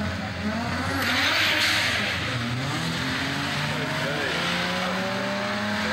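Car engine revving hard as the tyres spin in a smoky burnout, with a loud surge of tyre noise about a second in. The engine note climbs over the last couple of seconds.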